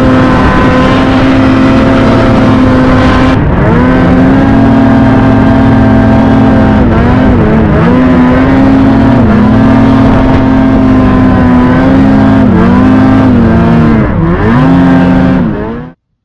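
Snowmobile engine running hard at high revs. Its pitch holds steady, then dips and climbs back several times as the throttle is eased and reopened, and the sound cuts off abruptly near the end.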